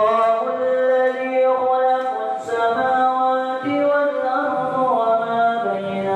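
An imam's voice reciting the Quran in one long, melodic phrase of held notes and sliding pitch, amplified through the mosque's loudspeaker system from a headset microphone.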